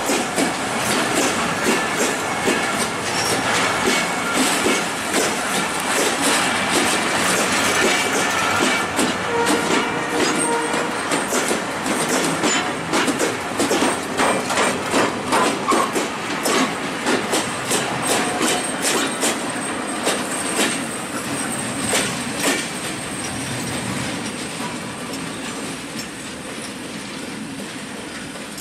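Wheels of a passing relief train, passenger coaches and a rail-mounted breakdown crane wagon, clattering over the rail joints in a steady clickety-clack. The sound fades over the last several seconds as the end of the train draws away.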